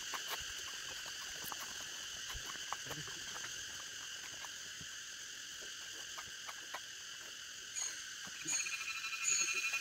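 Steady chorus of forest insects, several high chirring bands at once. About eight seconds in, a new pulsing call joins, repeating a few times under a second apart.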